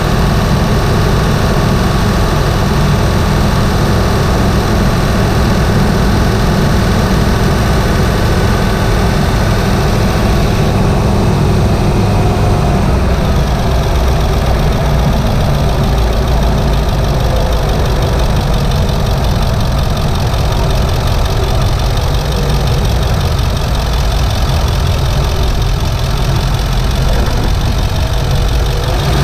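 7.3-litre Powerstroke turbocharged V8 diesel running steadily under light load while the truck is driven, heard from inside the engine bay; its higher-pitched content fades somewhat about eleven seconds in.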